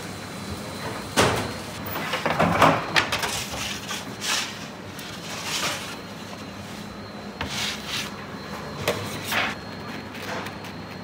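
Kitchen handling noises as crusty round bread is cut open with a knife at a steel counter: a sharp knock about a second in, a flurry of knocks and scrapes, then a run of short scraping swishes about a second apart, over a steady kitchen hum.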